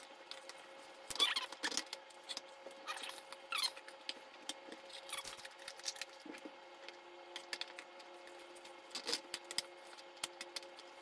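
Rigid plastic parts of a hand-cranked tomato strainer squeaking as they are twisted together, in a few short squeaks wavering in pitch, followed by light plastic clicks and knocks near the end as the funnel is lifted off and set back.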